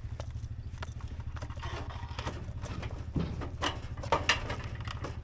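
An engine idling with a steady, pulsing low rumble, with a few sharp knocks and clunks over it.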